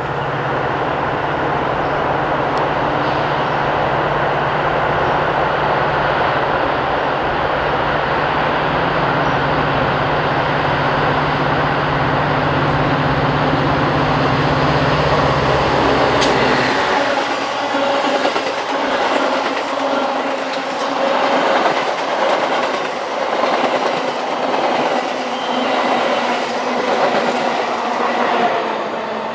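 A Metra commuter train passing close by. For a little over half the time the lead diesel locomotive's engine drones steadily. Then the engine sound falls away about sixteen seconds in, and the passenger cars' wheels clack rhythmically over the rail joints.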